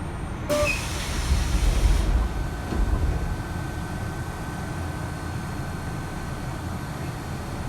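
Kintetsu 3220 series subway train car's doors opening at a station: a sudden burst of air hiss about half a second in, lasting about a second and a half, with a low thump. The car's steady low rumble continues throughout.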